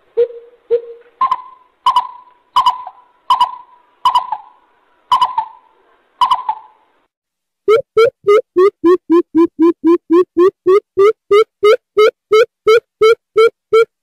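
Greater coucal calling in hollow hoots: a slower series of about one and a half a second, stepping up in pitch after the first two, then after a short pause a fast, even run of deeper hoots about three a second.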